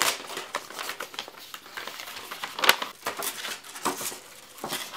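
A mailer envelope torn open and the paper and card inside handled: irregular crinkling, rustling and tearing crackles, with one sharp loud crackle about halfway through.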